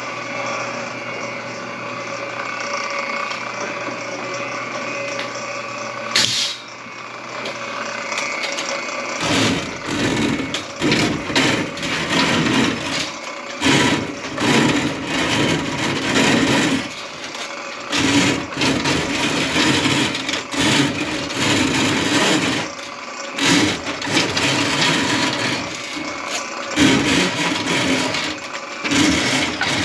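Power drain snake motor running in stop-start bursts of a second or two, cutting a grease clog out of a kitchen sink drain line. A steady hum comes first, then a sharp click about six seconds in, before the bursts begin.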